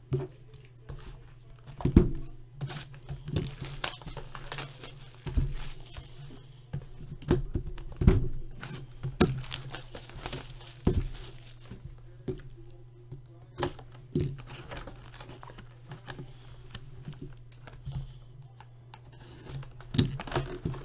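Plastic shrink wrap being torn and crinkled off a cardboard trading-card box, then the box opened and foil card packs handled, with irregular crackling and a few sharp knocks from the box on the table. A steady low hum runs underneath.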